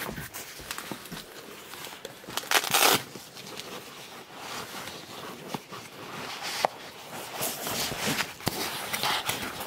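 Close handling noise: rustling of fabric or plastic with scattered small clicks and knocks as a small camera is handled among bags, with the loudest rustle about two and a half seconds in.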